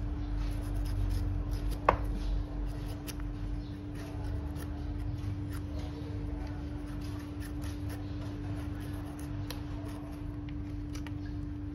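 Kitchen knife slicing the tough skin off a pineapple, with scattered scrapes and sharp taps of the blade against a plastic cutting board, one of them louder about two seconds in. A steady hum runs underneath.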